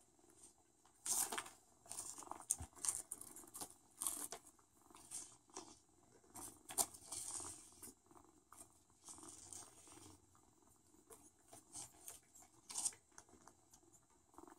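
Faint, irregular scratching and rustling from kittens' paws and claws moving over a mesh hamper and loose paper sticks, with scattered light clicks, the sharpest about a second in and near the end.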